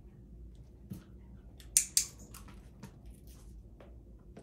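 A dog crunching a hard treat: a few sharp crunches, the two loudest close together about two seconds in.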